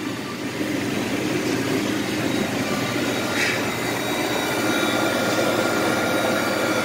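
Manitowoc commercial ice machine running: a steady mechanical drone and rush of air with a few faint steady tones over it.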